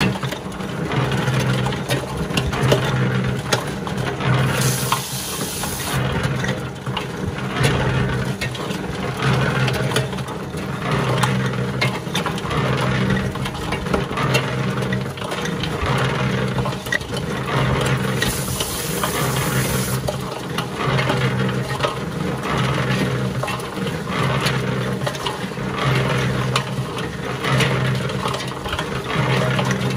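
Harbor Freight electric cement mixer running on its first run: a steady motor hum that pulses regularly, with stones and dry mix tumbling and rattling in the turning steel drum.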